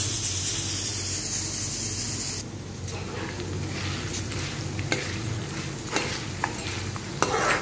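Tempering of dals, chillies and curry leaves sizzling in hot oil in a kadhai while a spoon stirs it, with scattered clicks of the spoon against the pan. A high hiss over the first couple of seconds cuts off suddenly, leaving the quieter sizzle and stirring.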